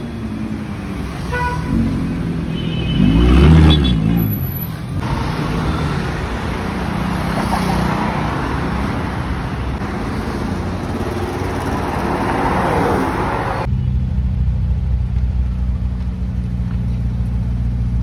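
City street traffic with short horn toots, and a car passing whose engine note rises and then falls about three to four seconds in. From about fourteen seconds in, a Ferrari SF90 Stradale's engine idles steadily.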